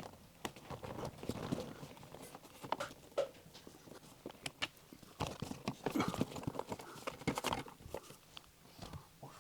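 Irregular clicks and knocks of hand tools and hard plastic interior trim being handled while the sun visors and grab handles are unscrewed, busiest a little past halfway.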